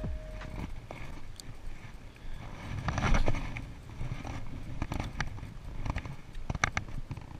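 Spinning rod and reel being cast and handled. A rush of noise about three seconds in comes as the rod swings through the cast, followed by scattered sharp clicks and knocks from the reel, with a quick run of clicks near the end.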